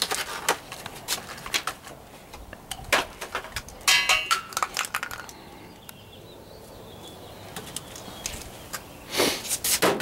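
Hands unpacking and handling a condensate safety switch from its plastic blister pack: irregular clicks and crinkling of plastic. The sounds are busiest about four to five seconds in, ease off, then bunch up again near the end.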